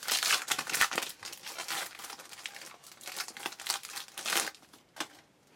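Wrapper of a football trading-card pack being torn open and crinkled, in irregular bursts of rustling that thin out near the end.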